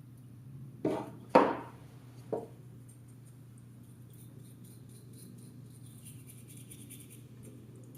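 Three sharp clinks or knocks, the loudest about a second and a half in, then a faint, rapid scratching of a small brush scrubbing a circuit board with denatured alcohol.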